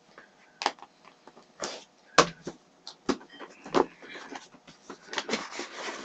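Cardboard subscription box being opened by hand: a string of sharp knocks, scrapes and cardboard rustles, several single clicks in the first few seconds, then denser rustling near the end.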